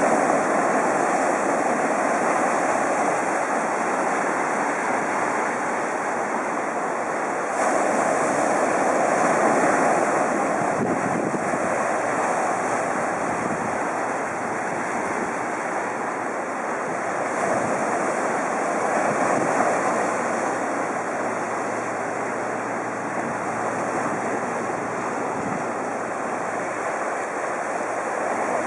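Ocean surf breaking and washing in foam over a limestone rock shelf: a continuous rush of water that swells as larger waves come in, most clearly about eight seconds in and again around eighteen to twenty seconds.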